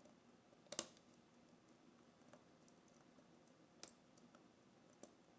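Faint, sparse clicks of a lock pick working the pin stack inside a modified Brinks deadbolt cylinder under tension. The clearest click comes about a second in, with two softer ones later.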